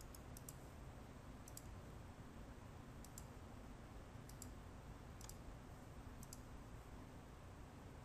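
Computer mouse clicking, faint, about seven times with irregular gaps, several clicks coming in quick pairs, over quiet room tone.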